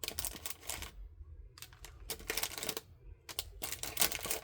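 Small plastic art tools clicking and clattering as they are handled and sorted into a plastic storage container, in three bursts of rapid clicks with short pauses between.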